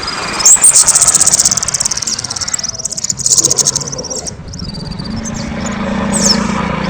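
Kemade songbird singing loudly: a rising high note runs into a fast, high trill of about two seconds, followed by short sharp chirps and quick upward whistles. A low steady hum sits underneath in the second half.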